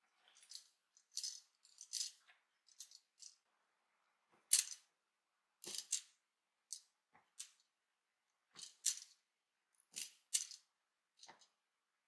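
A cat at play, making about a dozen short, faint scuffling noises at irregular intervals, the loudest about four and a half seconds in.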